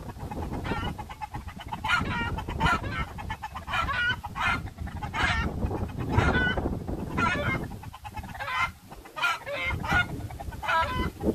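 Chickens clucking and squawking over and over, with wind rumbling on the microphone underneath.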